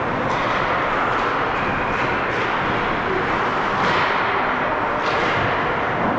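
Steady din of an ice hockey game in an arena, a mix of spectators and rink noise, with a few faint knocks.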